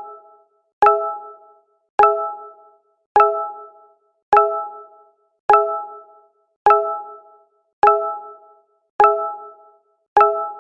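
Google Hangouts notification sound repeating again and again, about once every 1.2 seconds. Each is a short chime of a few tones struck together that fades out quickly.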